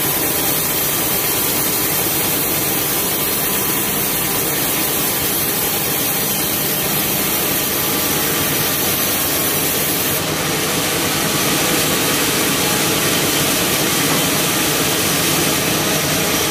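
Sawmill band saw running and sawing through a large cempedak log, a steady, dense, loud noise of blade and motor. It grows a little louder and brighter about ten seconds in.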